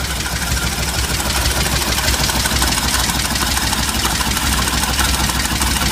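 A 1957 Dodge D100 pickup's 230 flathead straight-six idling steadily on its own, running on a freshly rebuilt carburetor.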